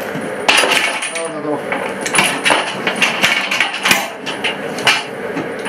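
Irregular sharp metallic clanks and knocks, several a second, as conveyor parts are handled while an underground mine conveyor is extended.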